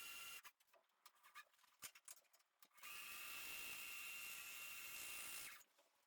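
Electric drill running steadily at a constant pitch, drilling out the truck's fender bolts. It stops about half a second in, a few faint clicks follow, and it runs again for nearly three seconds from about three seconds in.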